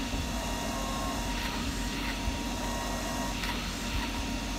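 Small cooling fan of a RasPad 3 Raspberry Pi 4 tablet running, held in the fingers: a steady whir with a low hum and a faint high whine. The fan itself is fairly quiet; the tablet's case makes it loud when it sits in it.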